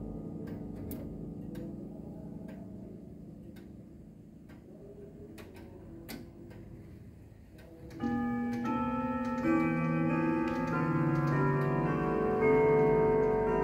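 Urgos grandfather clock ticking about once a second while earlier chime notes fade away. About 8 seconds in, the chime mechanism starts playing a tune of ringing notes one after another.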